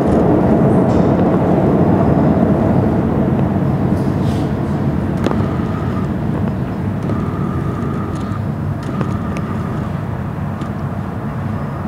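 Low, steady rumble of R68 subway trains echoing through an underground station, slowly easing off. A faint high whine comes and goes from about halfway through, and a few sharp clicks sound over it.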